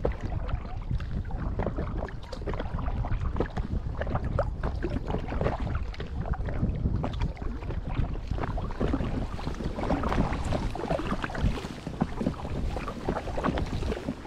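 Water splashing and dripping around an Intex Challenger K1 inflatable kayak being paddled, in many small irregular splashes, over a steady low rumble of wind on the microphone.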